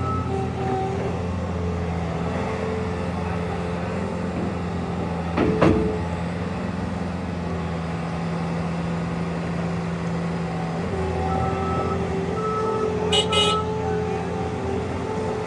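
Bobcat S76 skid steer's 74 hp turbo diesel engine running steadily. Short high beeps come and go near the start and again later. There is a sharp knock about five and a half seconds in.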